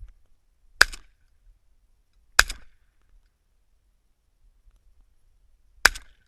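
Three sharp, short gunshots, the second a second and a half after the first and the third about three and a half seconds later.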